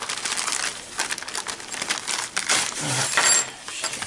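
Plastic poly mailer crinkling and rustling as it is handled and opened, with the papers and card inside rustling as they are slid out.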